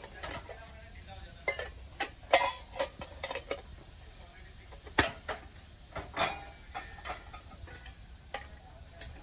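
Metal kitchenware knocking and clinking as pieces are handled and set down: a string of irregular short, sharp knocks with brief ringing, the loudest about two and a half and five seconds in.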